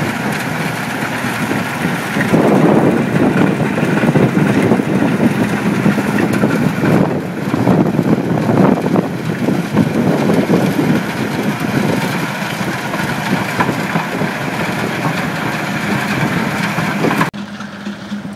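Bomag 362R reclaimer's diesel engine running under load while its rotor churns through crushed concrete base, a steady engine hum under a grinding, crunching rattle that swells about two seconds in. Near the end it cuts off abruptly to the quieter steady engine of a motor grader.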